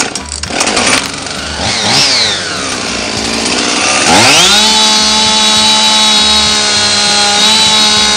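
Husqvarna 55 two-stroke chainsaw being started. It catches about a second in, revs up briefly and drops back, then about four seconds in is revved to full throttle and held steady while the chain oiler is checked for oil flung off the bar.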